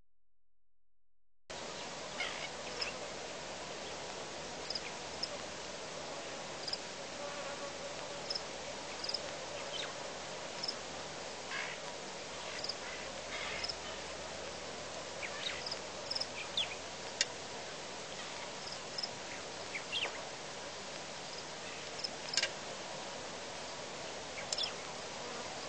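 Outdoor ambience: a steady hiss dotted with many short, high chirps and ticks, typical of insects. The sound drops out at the start and comes back about a second and a half in.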